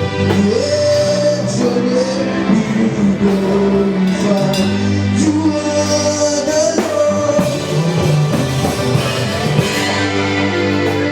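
Live gospel worship music: a singer holding long, gliding notes over a band with a steady bass line.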